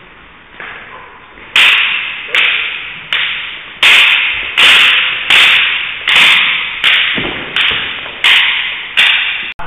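Arnis sticks clacking together in a steady striking drill: a sharp crack about every three-quarters of a second, about a dozen in all, each with a short echo.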